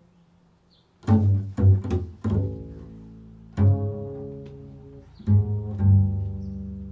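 Upright double bass played pizzicato: about six low plucked notes, each starting sharply and left to ring and fade, after about a second of quiet.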